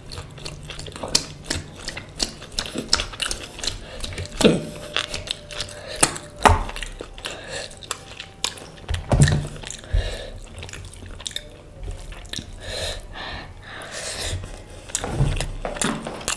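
Close-miked eating sounds: wet chewing and mouth smacks with many short clicks, and now and then a clink of dishes or cutlery.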